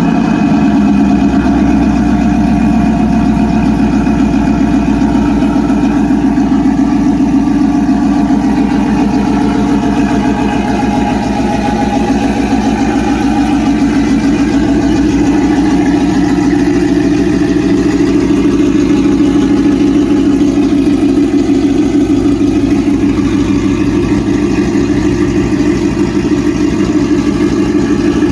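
A cammed 5.3-litre Chevy V8 with ported heads and long-tube headers idling loudly and steadily just after a cold start. The exhaust comes out of side-exit dual tips ahead of the rear wheel.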